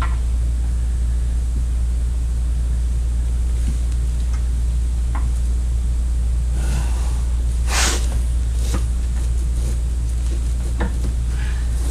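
Steady low hum with scattered short clicks and knocks of work on a car, and a brief hiss about eight seconds in.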